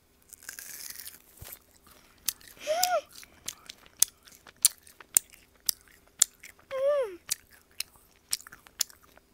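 Close-miked chewing of a gaeseong juak, a syrup-glazed fried glutinous rice cake: sticky, wet mouth clicks come about twice a second. Two short hummed "mm" sounds come at about three and seven seconds.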